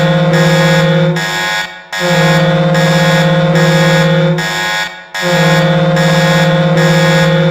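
HC Sochi's recorded ice hockey goal horn blasting loudly and steadily in long blasts of about three seconds each, with brief breaks between them.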